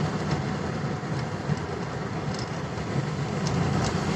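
Car driving on a wet road, heard from inside the cabin: steady engine and tyre noise, with a few faint ticks.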